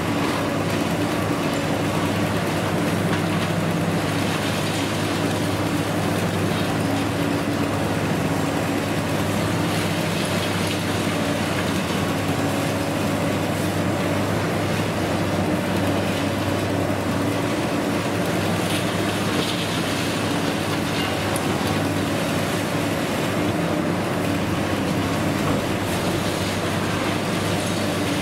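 Long-reach demolition excavator running steadily, with a continuous low engine drone over a constant hiss and scattered crackles of breaking concrete and rebar debris.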